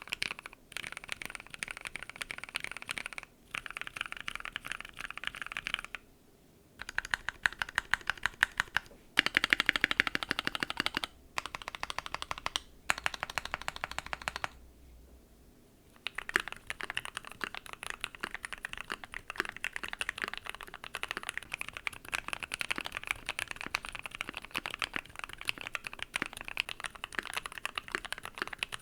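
Typing on a Keychron Q1 mechanical keyboard built with an FR4 plate, Gateron Black Ink V2 switches and PBT keycaps: fast runs of keystroke clacks. Typing stops briefly twice, about six seconds in and again around fifteen seconds, and is loudest for a couple of seconds around the ten-second mark.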